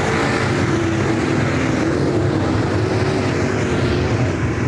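Dirt-track race cars running on the track, a steady, loud drone of several engines with no break.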